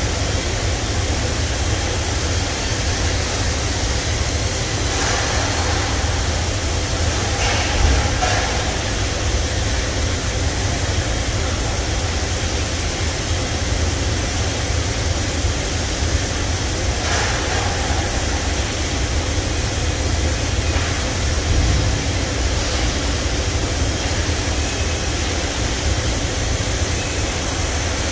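Okuma MA-600H-II horizontal machining center running inside its enclosure: a steady low machine hum under a rushing hiss of coolant spraying, with a few brief louder swells.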